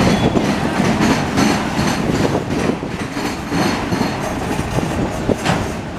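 Freight train of auto rack cars rolling past, a steady rumble with repeated wheel clatter over the rails and a faint high ringing from the wheels.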